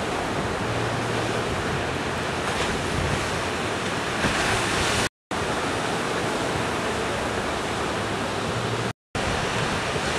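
Ocean surf breaking, a steady even rush of wave noise, cut by two brief gaps of silence about five and nine seconds in.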